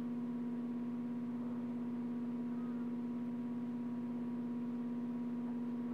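A steady low hum at one unchanging pitch.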